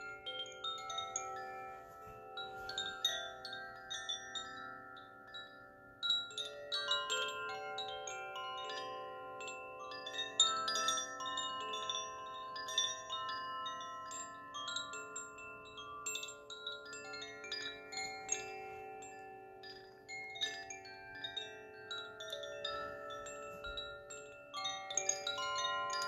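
Several hanging bamboo-tube chimes ringing as they swing, their clappers striking out many overlapping notes that linger and blend; the ringing grows fuller about six seconds in.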